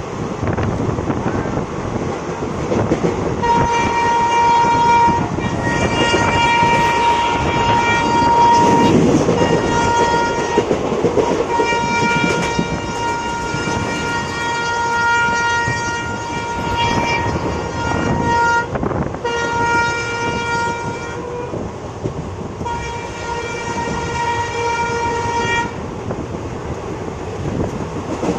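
Train horn sounding in a series of long blasts, several seconds each with short breaks, over the steady rumble and clatter of the moving train.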